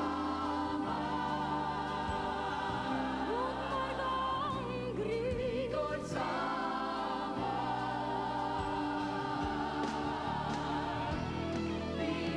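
A pop song performed live: a woman's lead vocal and a small mixed group of backing singers singing together with vibrato over a band accompaniment.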